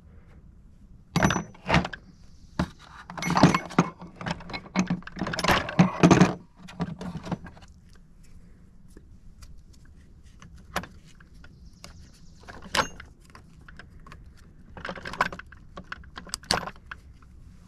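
Metal tools and parts clinking and rattling as they are handled, a flurry of clicks and knocks in the first six seconds, then scattered single clinks.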